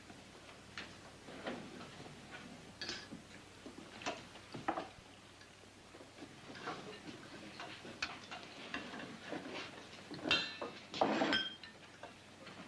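Scattered clinks and knocks of dishes and cutlery, irregular and light, with a louder cluster of clatter near the end.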